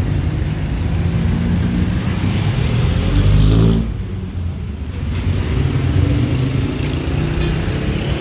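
Motor vehicle engines running in street traffic. About three seconds in, one vehicle revs up loudly with its pitch rising, then its sound drops away suddenly.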